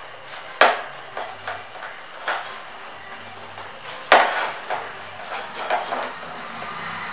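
Aluminium banner rail knocking and clinking against a wooden tabletop as it is handled: two sharp knocks, about half a second in and about four seconds in, with lighter taps between.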